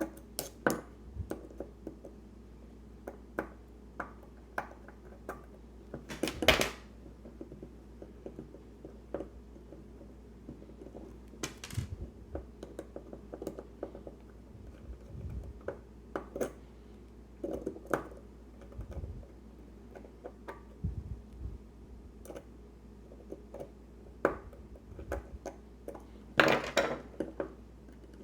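Scattered small metallic clicks and taps from a Sargent Keso dimple lock cylinder and small tools being handled as the lock is disassembled. There is a louder cluster of clicks about six seconds in and another near the end.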